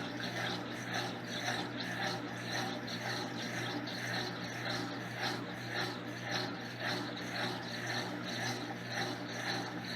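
Electrolux LTC10 top-loading washing machine running: a steady motor hum under a rhythmic swishing that swells about twice a second.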